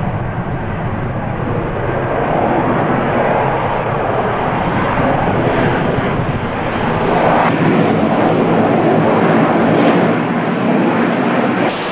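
Lockheed Martin F-35B in a hover: its F135 jet engine and shaft-driven lift fan make a loud, steady rushing jet noise that swells and eases slowly. There is a single sharp click about seven and a half seconds in, and the sound changes abruptly just before the end.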